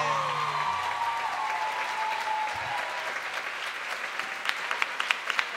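Audience applauding at the end of a flamenco alegrías, as the band's last held notes die away in the first second. Louder single claps stand out near the end.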